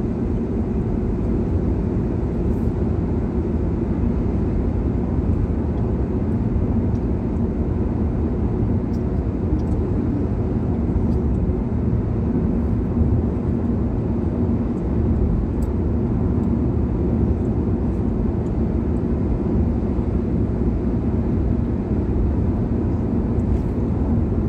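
Steady low rumble of road and engine noise inside a Hyundai Venue's cabin while cruising on an expressway.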